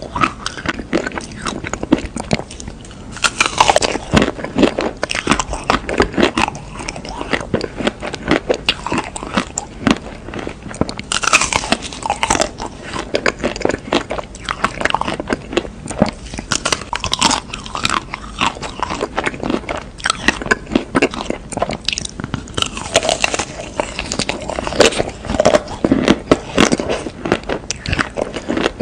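Close-miked bites into a chocolate-coated ice cream bar topped with nuts: the hard chocolate shell cracks and crunches, with chewing in between, over and over.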